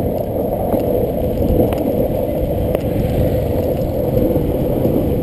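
Steady rushing wind on the microphone mixed with the rolling rumble of longboard wheels on asphalt during a fast downhill run, growing slowly louder.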